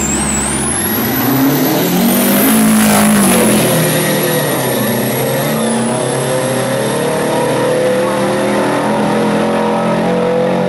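Two diesel semi-truck tractors launch off the drag-strip start line and accelerate hard down the track. The engine note rises about a second in and is loudest a couple of seconds later, then holds with a slow climb under a high whine.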